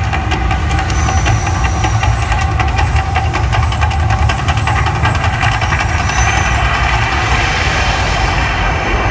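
Mirage volcano show erupting: a loud, steady deep rumble with hissing and crackling as gas-fed flames burst from the peak and across the lagoon.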